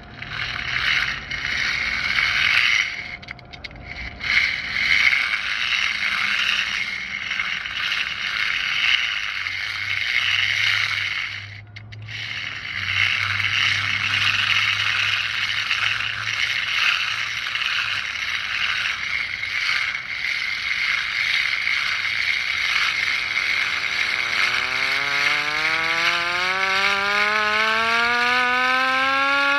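A 1943 Federal Electric hand-cranked air raid siren being cranked. The gearing and rotor give a whirring, rattling mechanical noise, with two brief breaks about 3 and 12 seconds in. In the last several seconds the siren's wail starts and rises steadily in pitch as it spins up.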